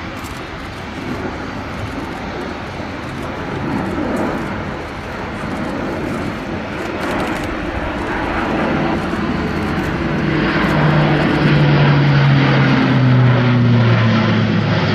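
Airbus A400M's four TP400-D6 turboprops and eight-bladed propellers running at display power, growing louder as the aircraft banks close overhead. From about ten seconds in, a strong low propeller hum stands out and slides down in pitch as the aircraft passes.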